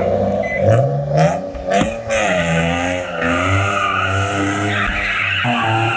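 Car engine revving up about a second in. From about two seconds in, tires squeal steadily over the wavering note of the HR-swapped Infiniti G35's V6 as it drifts.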